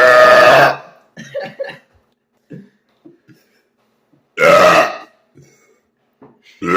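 Loud, deliberate human burps: one trailing off about a second in, another about four and a half seconds in, and a third starting right at the end.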